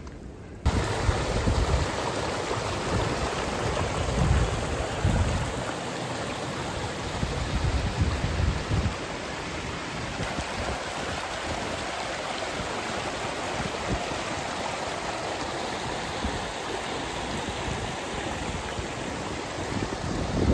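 Small mountain stream running and splashing over rocks, a steady rushing that starts abruptly less than a second in. Wind buffets the microphone in low gusts during the first half.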